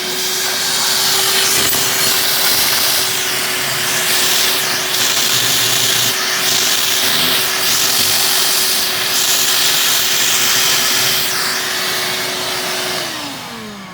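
Shop vac running, its suction hiss changing as the nozzle is worked over an opened scallop to clean it. Near the end it is switched off and the motor winds down.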